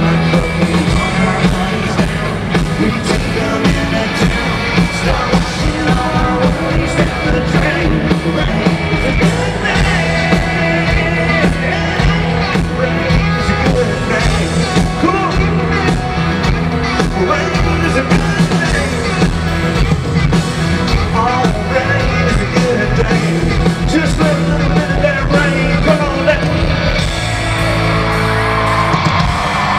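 Live country band playing with a male lead singer singing into a microphone over the full band, loud, with yells from the crowd.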